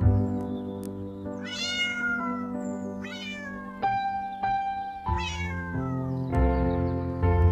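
Three cat meows, each rising and then falling in pitch, over gentle background music.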